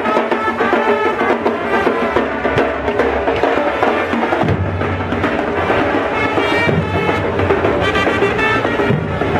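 Parade music: snare and bass drums of a marching drum corps beating, with horn-led Latin music mixed in.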